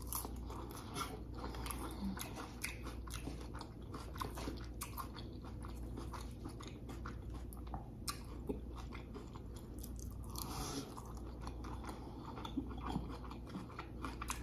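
Close-miked chewing of a mouthful of burrito bowl with lettuce, rice and chicken: a steady run of wet mouth clicks and crunching, with another forkful taken partway through.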